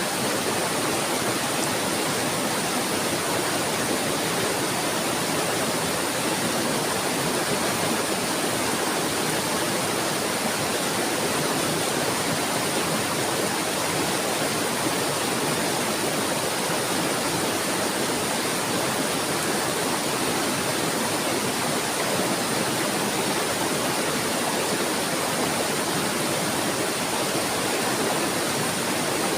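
Flowing water rushing steadily, an even unbroken hiss with no birdsong or other events standing out.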